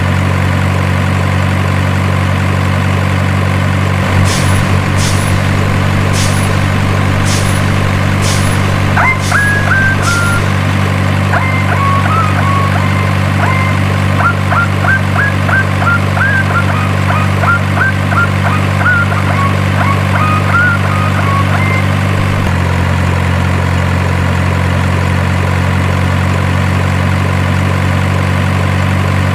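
Steady idling truck engine sound, low and even. A few seconds in come about seven sharp ticks roughly evenly spaced, then a run of short high chirps for some ten seconds; the engine note shifts slightly a little past the middle.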